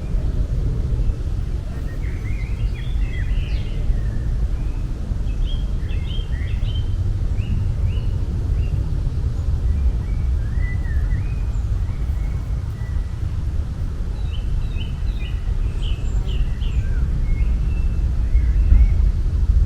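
Outdoor nature ambience: a steady low background noise with small birds chirping in quick runs of short, high calls throughout.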